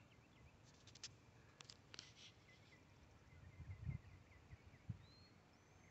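Near silence, with a few faint clicks and faint high chirps.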